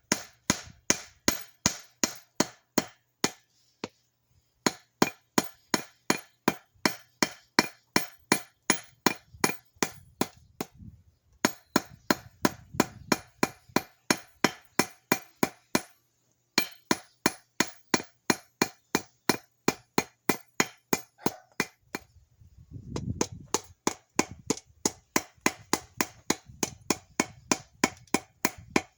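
Hand hammer striking hot steel on an anvil in a steady forging rhythm of about three ringing blows a second, with brief pauses about 3, 11, 16 and 22 seconds in.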